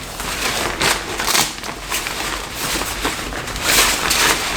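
Crinkly rustling of a sheer salon cape being handled and put on, in irregular bursts.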